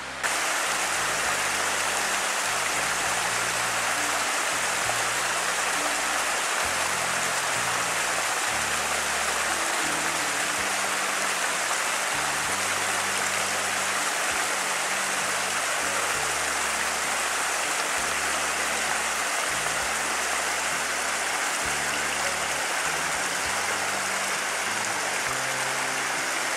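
Spring-fed stream running in small cascades over rocks, a steady rush of water, with background music underneath.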